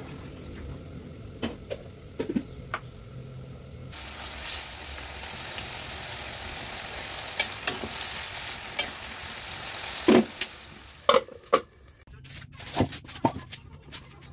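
Vegetables sizzling as they stir-fry in a wok, with a metal spatula scraping and clinking against the wok. The sizzling starts about four seconds in and stops shortly after a few loud metal clanks, leaving only a few light clicks near the end.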